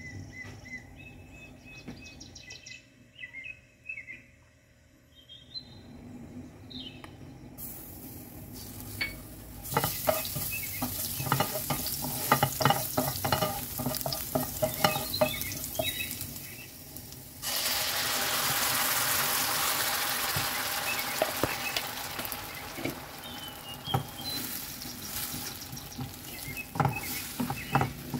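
Garlic sizzling in hot oil in a nonstick frying pan, stirred and scraped with a wooden spoon. About halfway through, blended tomato goes in: the sizzle jumps suddenly to a loud hiss, then slowly dies down under more stirring.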